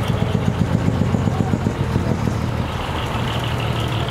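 Heavy dekotora truck's diesel engine running at low speed as the truck is manoeuvred into position, a loud pulsing low rumble. About two-thirds of the way in, a high steady tone joins it.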